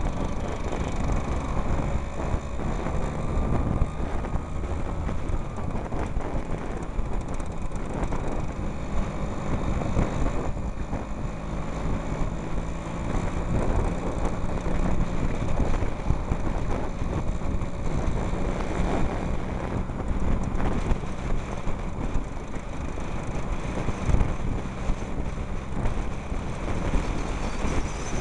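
Vintage scooter engines running on the move, heard from a helmet-mounted microphone with steady wind noise over it. The engine pitch rises and falls in places as the scooters change speed.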